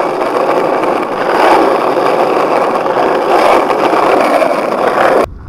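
Skateboard wheels rolling over rough asphalt: a loud, steady rolling noise that cuts off suddenly near the end.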